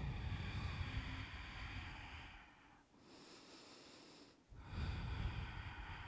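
A woman's slow, deep breathing: two long breaths, the first lasting about three seconds and the second starting about four and a half seconds in, with a quieter stretch between them.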